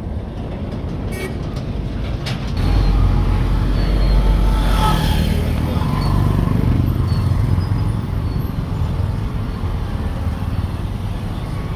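Heavy road traffic passing close: a diesel truck's engine rumble swells a couple of seconds in and stays loudest through the middle, with cars and motorcycles, and a brief hiss about five seconds in.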